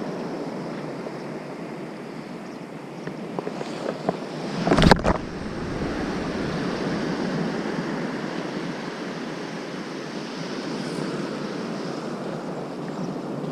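Surf washing onto a sandy beach with wind on the microphone. About five seconds in, a brief loud whoosh and buffet as a long surf-casting rod is swung through a cast.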